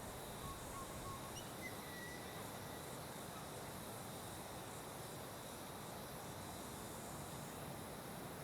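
Steady outdoor background noise with a faint, steady high-pitched tone, and a few faint short chirps in the first two seconds.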